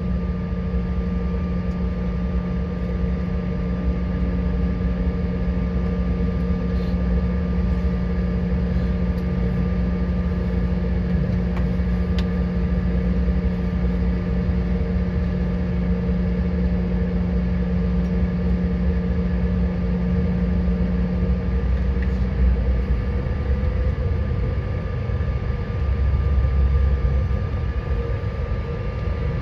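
Steady drone of an airliner's engines and cabin air, heard from inside the cabin while taxiing after landing, with several steady hums over a low rumble. One hum fades about twenty seconds in, and the rumble swells briefly near the end.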